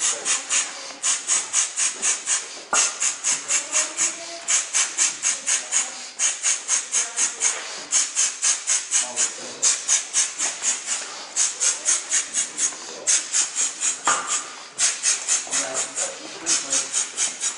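Rapid, forceful rhythmic breathing, a quick hiss about four to five times a second in runs of a second or so with short pauses: Golden Bell Shield breath work, used to brace the body against blows and heavy loads.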